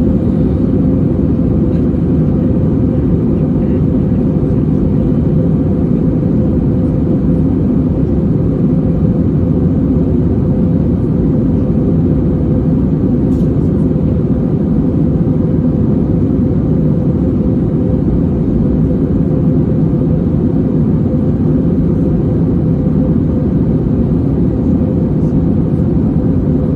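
Commercial airliner in flight: a steady, unchanging low rumble of engine and air noise.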